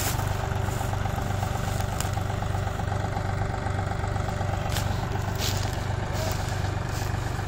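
Tractor diesel engines running steadily with a low, even hum and a fast regular pulse, with a few brief clicks about five seconds in.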